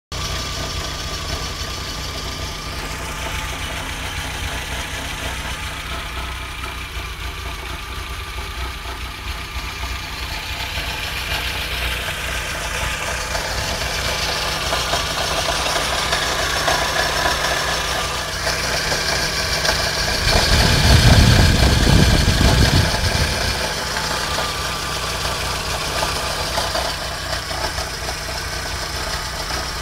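Car engine running steadily with a strange noise that the owner is showing. A louder low rumble swells and fades about two-thirds of the way through.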